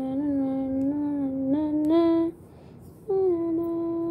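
A child humming a wordless tune in long held notes that step up and down in pitch, breaking off for under a second a little past the middle.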